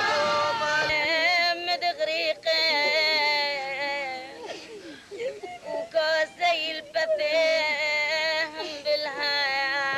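A woman's voice wailing a funeral lament in long, wavering, high held notes, broken by a few short pauses.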